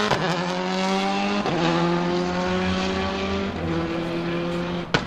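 Citroën Xsara WRC's turbocharged four-cylinder engine accelerating hard up through the gears, its pitch climbing and then dropping at upshifts about a second and a half in and again near four seconds, growing fainter as the car pulls away. A single sharp crack comes near the end.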